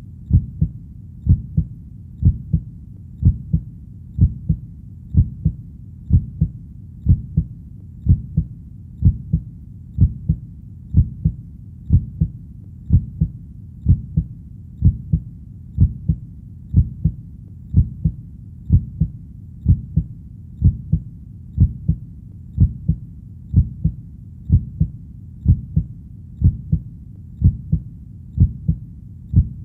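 Heartbeat sound: steady, dull double thumps (lub-dub), about one beat a second, evenly repeated.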